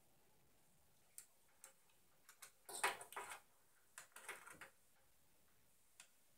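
A few light clicks and short scrapes, in a cluster loudest about three seconds in, with one more click near the end.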